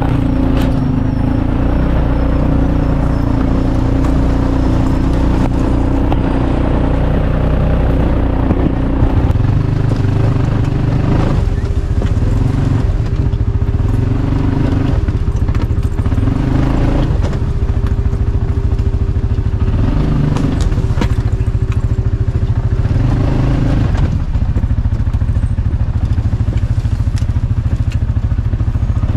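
CFMOTO off-road vehicle's engine running under way, the throttle opening and easing every couple of seconds, with a few sharp knocks.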